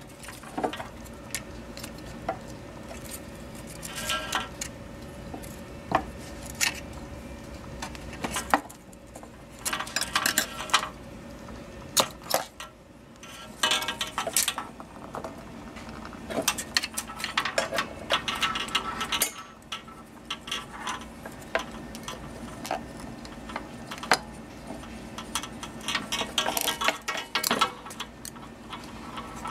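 Metal hand tool clicking, scraping and clinking against the small metal ink-line fittings of a direct-to-garment printer head while tight ink lines are pried off. The taps are irregular, some with a short ring.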